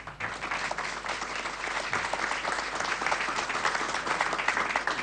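Audience applauding. The clapping swells over the first second, then holds steady and dense.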